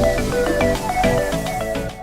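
Background electronic music with a synth melody, fading out near the end.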